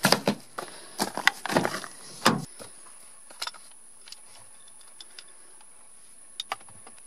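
Handling knocks and clatter as a cordless drill and tools are moved on a wooden workbench, several sharp knocks in the first two and a half seconds. Then a few light clicks from a hard plastic eyeglass case being opened and glasses taken out, two close together near the end.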